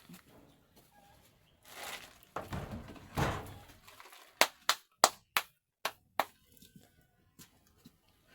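A scraping rustle, then a run of six sharp knocks, hard objects striking each other about three times a second.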